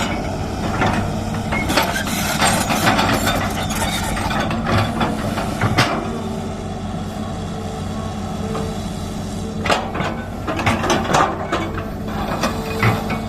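Hydraulic excavator's diesel engine running steadily while digging a ditch, with a series of metallic clanks and knocks in the last few seconds.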